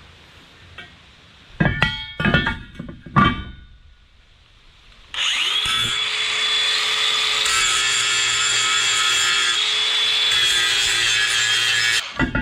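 A few sharp metal clanks. Then, about five seconds in, an angle grinder spins up and runs steadily at an even whine for about seven seconds before shutting off.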